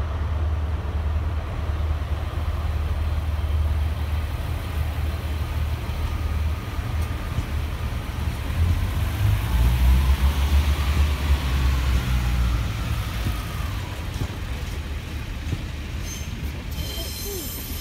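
British Rail Class 142 Pacer diesel railbus pulling away under power: its underfloor diesel engines run with a steady low drone, loudest as the unit passes about ten seconds in, then fading as it moves off. A faint high squeal comes in near the end.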